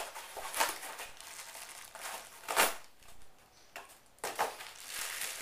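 Cardboard and wrapping being pulled off and crumpled: crinkling and tearing in several short bursts, the loudest about two and a half seconds in.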